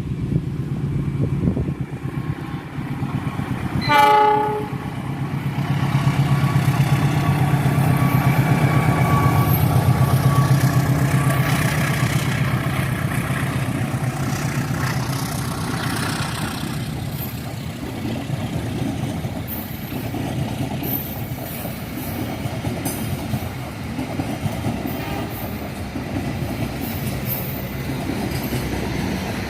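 A CC 206 diesel-electric locomotive sounds one short horn blast about four seconds in. The loud, steady rumble of the train passing follows, swelling and then easing off, with wheels clattering over the rails.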